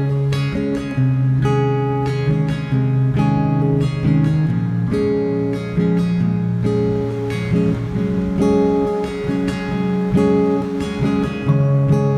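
Background music: an acoustic guitar strumming and picking chords at a steady pace.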